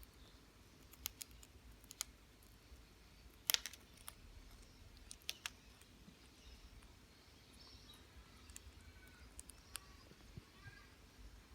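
A parrot biting into potato chips: scattered sharp crunches and clicks, the loudest cluster about three and a half seconds in. A few faint short chirps near the end.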